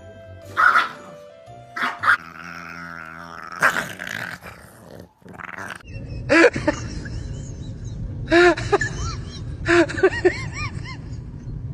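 Dogs play-fighting: three short bursts of rising-and-falling yelping cries, the loudest sounds, starting about six seconds in. Before them come a few brief sharp sounds while a small puppy plays with a ball. Background music runs underneath.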